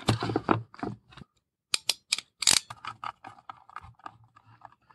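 Hands handling wires and a small plastic junction box: rustling and scraping, then a quick run of four sharp plastic clicks about two seconds in, followed by quieter fiddling with wire ends.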